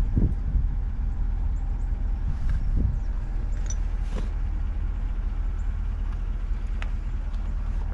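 Chevrolet pickup truck's engine idling, a steady low rumble, with a few light clicks and knocks over it.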